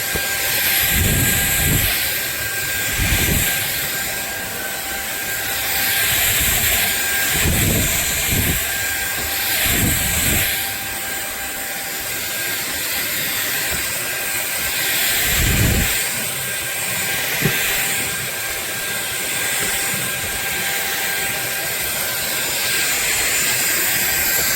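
SunSare X7A cordless stick vacuum running, a steady loud whine from its motor with low thumps now and then as it is worked across the floor.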